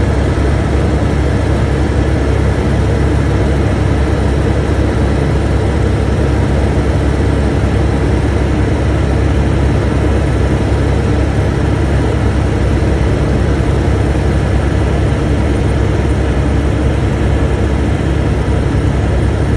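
Helicopter in flight heard from inside the cabin: a loud, steady drone of engine and rotor, deepest at the low end.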